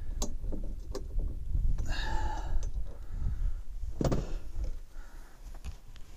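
Metal clicks and knocks from a tractor cab door hinge being worked into line, with a short squeak about two seconds in and a heavier clunk about four seconds in, over a low rumble.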